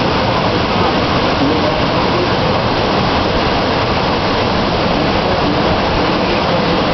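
Ocean waves breaking in the shore break, a steady loud rush of surf and whitewater with no let-up.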